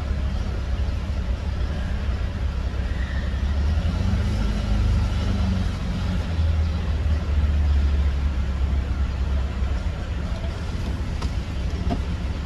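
Ford E150 van's engine running, heard from inside the cabin as a steady low rumble that grows louder for a few seconds in the middle.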